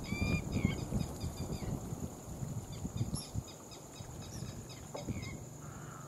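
Background birds calling: many short chirps and whistled notes from several birds, thickest in the first half. Under them run a steady high-pitched buzz and a low, uneven rumble that fades about halfway through.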